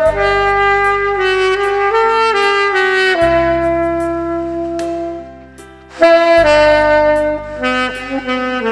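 Saxophone playing a slow, held-note melody over a backing track with bass and light drums, one phrase ending softly around the middle before the next begins loudly.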